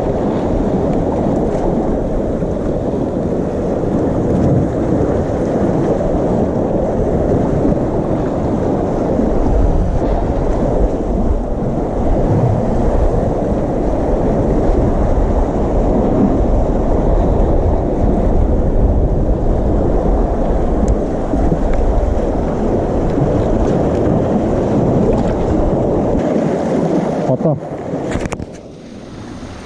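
Wind buffeting the action camera's microphone: a steady low rumble that dips briefly near the end.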